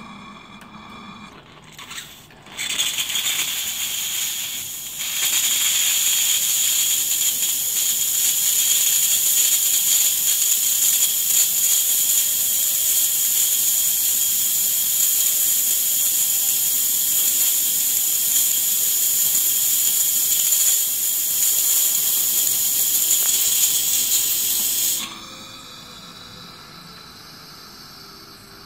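Steam wand of a DeLonghi ECAM22.110.SB coffee machine hissing steadily for about twenty seconds. It starts a couple of seconds in, gets louder a few seconds later, then cuts off suddenly near the end.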